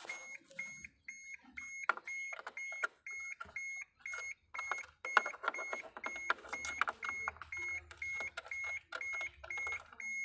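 An electronic beeper sounds short, even beeps of one pitch, about two a second. Over it come irregular clicks and rustles of wires and tester probes being handled.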